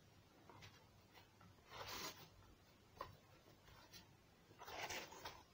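Faint rustling and rubbing of paper and cardboard being handled, in two short bursts, about two seconds in and again near the end, with a small click in between.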